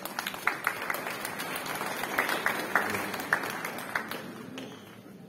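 Audience applauding, a dense patter of many hands clapping that swells and then dies away about four to five seconds in.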